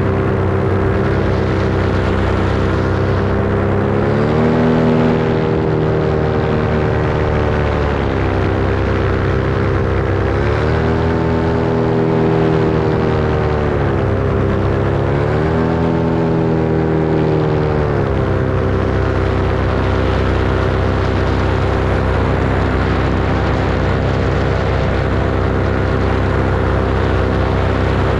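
Small aircraft engine running steadily in flight, its pitch climbing and easing back three times as the throttle is opened and closed, about 4, 10 and 14 seconds in.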